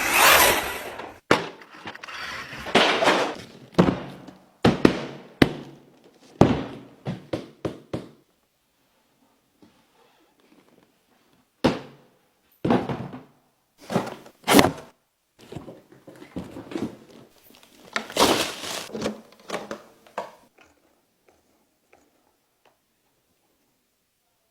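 Packaging being handled during an unboxing: irregular thuds, knocks and rustling, busy for the first eight seconds, then scattered bursts until about twenty seconds in.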